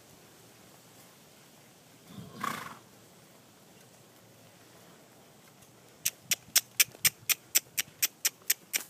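A horse gives a short snort about two seconds in. Near the end comes a quick, even run of about a dozen sharp clicks, about four a second.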